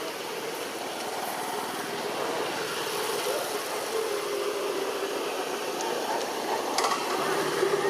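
An engine running steadily and slowly growing louder, with one sharp click near the end.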